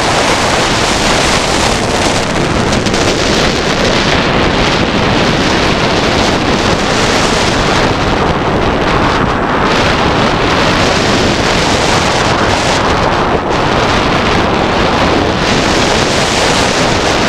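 Loud, steady wind rush buffeting the microphone on a roller coaster train running at speed, mixed with the rumble of the train on its steel track; the hiss thins and swells briefly several times as the train changes direction.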